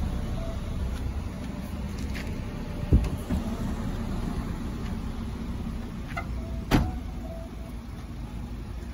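A box set down in a car boot with a dull thump about three seconds in, then a Proton sedan's boot lid slammed shut near the end, the loudest sound, over a steady rumble of the car park outdoors.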